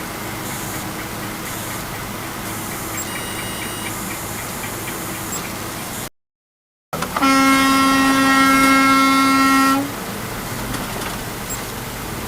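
Steady road noise, broken by a short dead-silent cut, then a car horn held in one long blast of about two and a half seconds before the road noise returns.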